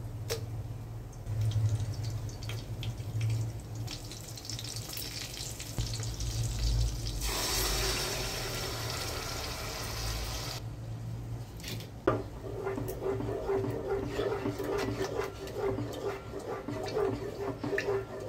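Yogurt poured into hot oil in an aluminium pot: a loud rushing sizzle for about three seconds, a single knock, then uneven crackling and spluttering as the yogurt is worked into the oil by hand. A low hum runs under the first part.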